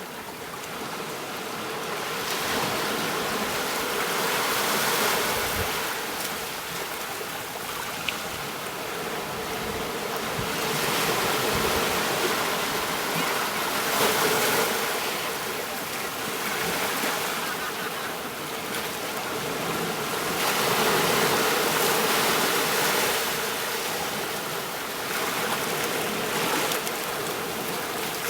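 Ocean surf washing onto a beach: a steady hiss of water that swells and falls back every few seconds as waves break and recede.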